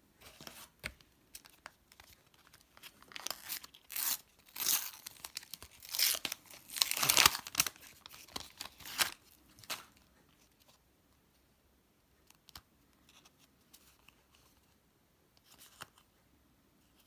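A Panini sticker packet's wrapper being torn open and crinkled by hand: a run of rips and rustles, loudest in the middle. After about ten seconds only soft, scattered rustles and clicks are left as the stickers are handled.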